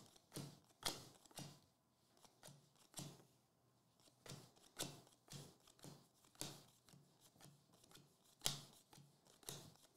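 Baseball trading cards being thumbed off a stack one at a time, each card giving a faint, short papery click, about two a second, with one louder snap near the end.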